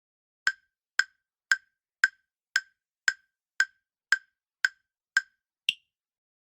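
Quiz countdown-timer sound effect: eleven short, dry wood-block-like ticks at about two per second, the last tick higher in pitch.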